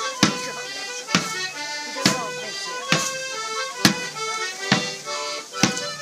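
A lively folk dance tune in held, reedy notes, with a sharp knock on the beat about every 0.9 seconds.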